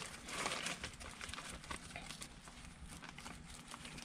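Faint, scattered light clicks with a brief rustle about half a second in: small parts being handled.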